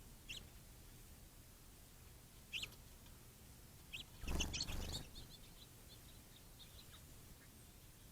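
House finches chirping: short high chirps a couple of seconds apart, with a brief, louder rustling burst about halfway through, followed by a few faint chirps.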